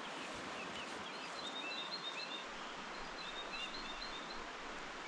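Small birds chirping in quick, short high notes, in two runs of calls, over a steady hiss of the flowing river.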